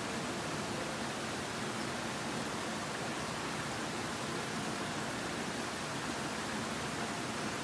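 Steady rushing of water from a garden stream flowing over rocks beneath a footbridge: an even, unchanging hiss with no distinct events.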